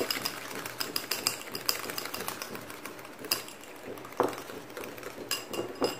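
Small wire whisk beating an egg by hand in a ceramic bowl: a fast run of light clicks as the wires tap the bowl. The clicks thin out later, with a few louder knocks.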